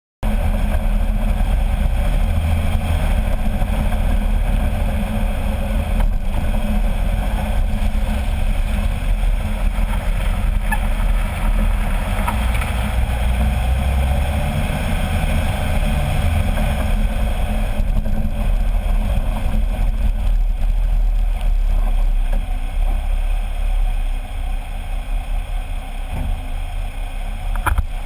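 Jeep Wrangler LJ Rubicon driving, heard from under the front axle: a steady, heavy rumble of tyre and road noise with wind on the microphone, getting somewhat quieter over the last few seconds as the Jeep slows.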